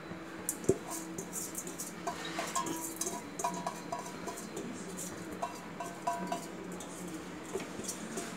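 Pot of rice in a tomato, milk and water mixture boiling: bubbles popping and crackling over a low steady hum, with one sharp knock about a second in. Faint short music-like tones come through twice.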